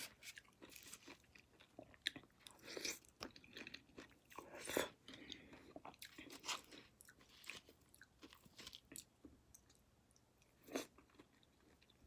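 A person chewing and biting into sugared grapefruit segments: faint, irregular crunchy, wet mouth sounds, the loudest bite about five seconds in.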